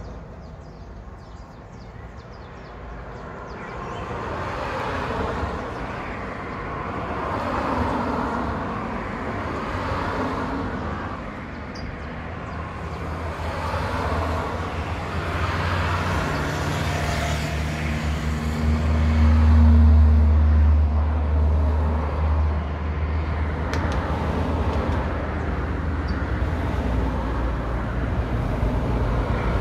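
Road traffic: cars passing one after another on a paved road, each rising and fading with tyre and engine noise. About two-thirds of the way through, a vehicle with a deep engine drone passes, the loudest moment.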